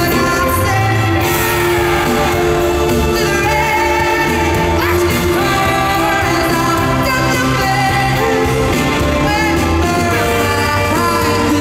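Live pop music: a woman singing into a microphone over full band accompaniment, heard from among the crowd in a large arena.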